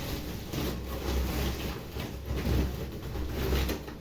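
Rustling and handling noise close to the microphone, with a low rumble that swells and fades, as grocery items and their packaging are handled.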